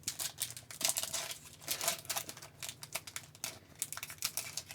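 A trading card pack's wrapper being torn open and crinkled by hand: a run of irregular crackles and rustles.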